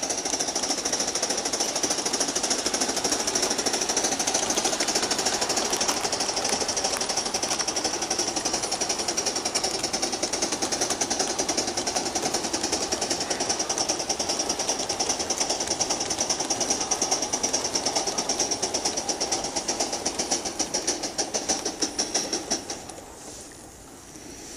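Aster gauge 1 live-steam model of a Pennsylvania K4 steam locomotive running under load, its exhaust beats coming so fast they merge into a rapid, even chatter with a steady hiss. Near the end the beats grow more separate and then fade off sharply.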